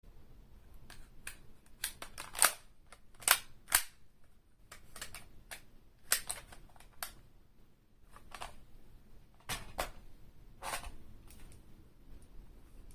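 Sharp, irregular mechanical clicks and clacks of an airsoft gun being reloaded: magazine and action parts snapping into place, about a dozen strokes with the loudest in the first half.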